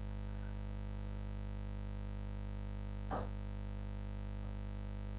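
Steady low electrical mains hum, with one brief faint sound about three seconds in.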